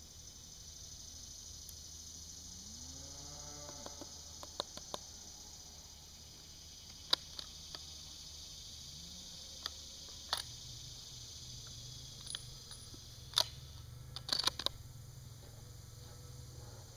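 Steady high drone of insects, with scattered light clicks and knocks of a .30-06 rifle being handled, including a quick cluster of clicks near the end.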